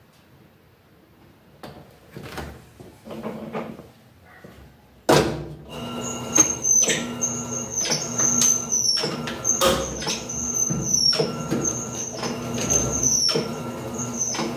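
Electrolux LPR17 top-loading washing machine agitating. About five seconds in, the motor starts with a sudden loud onset, followed by repeated knocks about twice a second over a steady hum and a high whine. This is the noise in agitation that a new belt did not cure; the technician suspects play inside the agitation mechanism.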